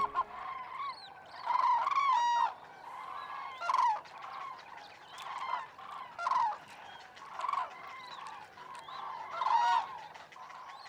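A flock of common cranes calling: many overlapping honking, trumpeting calls, louder bursts every second or so over a background of more distant calls.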